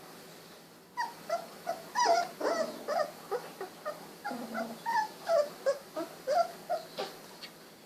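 16-day-old golden retriever puppies whimpering and squeaking: a rapid run of short, high, wavering calls that starts about a second in.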